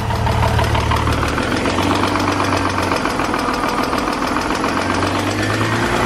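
BMW E46 engine running with a fast, steady knock from the bottom end: rod knock, which the owners put down to a probable spun bearing.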